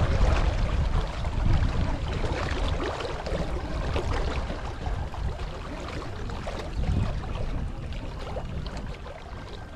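Water splashing and rushing along the hull of a small sailing yacht under way, with wind buffeting the microphone in an uneven low rumble.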